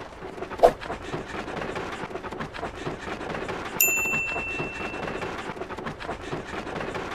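Heavy running footsteps as a cartoon sound effect: low thuds about every half second over a steady rumbling noise, with a sharp knock under a second in. About four seconds in, a bright bell-like ding rings out and fades over a second and a half, the sound of a subscribe button popping up.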